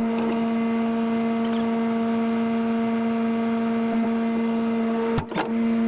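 A steady, even hum with a clear pitch, broken briefly about five seconds in.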